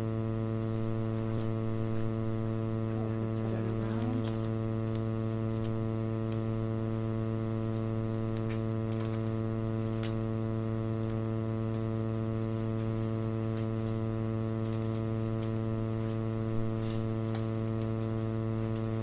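Steady electrical mains hum, a low buzz with a long ladder of overtones that stays unchanged throughout. A few faint clicks and rustles sit on top of it.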